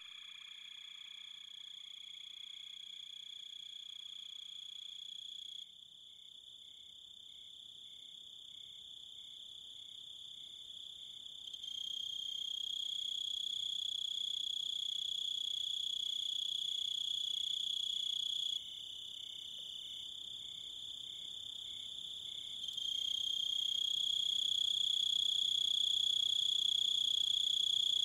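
Steady, high-pitched, cricket-like insect trill without a break. From about six seconds in, a fainter pulse repeats about twice a second beneath it. The level steps up and down abruptly several times.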